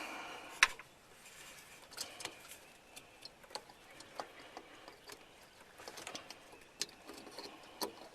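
Scattered light clicks and taps of an H1 headlight bulb being worked back into its headlight housing, with the sharpest click about half a second in.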